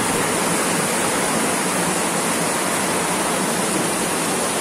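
Torrential rain pouring down, a steady dense hiss of heavy rainfall and splashing water with no break.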